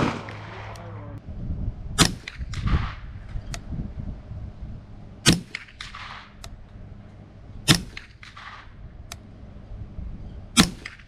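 Remington 597 .22 LR semi-automatic rifle fired slowly, four sharp shots about one every two and a half to three seconds, each followed under a second later by a softer trailing report. Fainter single shots or clicks fall between them.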